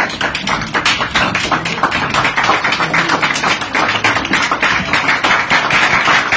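Small group of people applauding, a dense, steady patter of hand claps.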